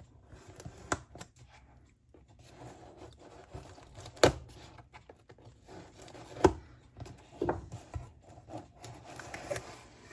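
A cardboard shipping box being opened and handled: rubbing and rustling of cardboard and packing, with a few sharp knocks and snaps, the loudest about four and six and a half seconds in.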